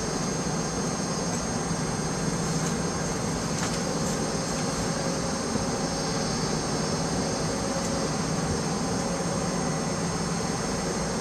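Steady cabin noise inside a Boeing 757 on the ground: its jet engines and air system running as an even rumble, with a steady high whine over it.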